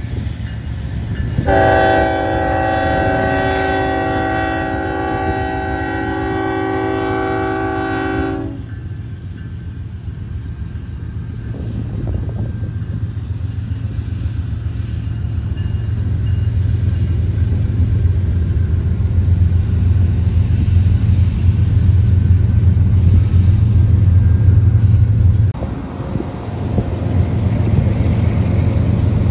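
Union Pacific GE diesel locomotives pulling a long freight train past at close range. About a second and a half in, the multi-note air horn sounds one long blast lasting about seven seconds. Then the deep rumble of the engines builds and grows louder. After a sudden cut, the engine rumble continues as the train approaches.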